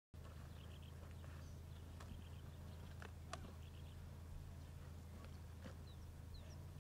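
Lionesses feeding on a buffalo carcass: faint scattered crunching and tearing clicks as they chew the meat and hide, over a steady low hum.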